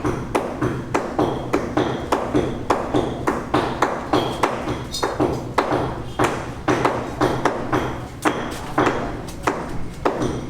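Rapid, steady hammering, about three strikes a second, each strike with a short metallic ring.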